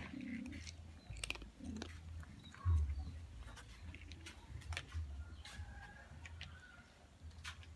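Several cats crunching dry cat food from a plate, a scatter of small irregular chewing clicks. A low bump about three seconds in is the loudest moment.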